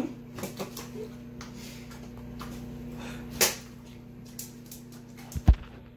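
Steady hum of a running microwave oven, with a sharp knock about three and a half seconds in and a heavy low thump near the end.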